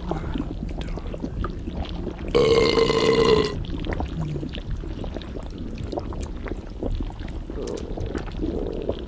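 A loud, pitched belch about two seconds in, lasting about a second, over continuous wet stomach gurgling heard as if from inside the belly.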